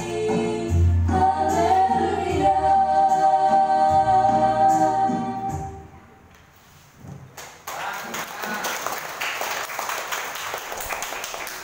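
Two female voices singing a duet through a PA over a Casio electronic keyboard, ending on a held note about halfway through. After a short lull, applause rises and slowly fades.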